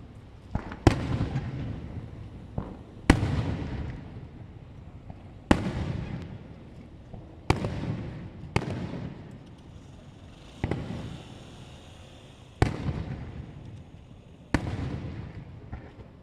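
Aerial firework shells bursting: about ten sharp bangs, roughly one every two seconds, each followed by a long rolling rumble that fades away.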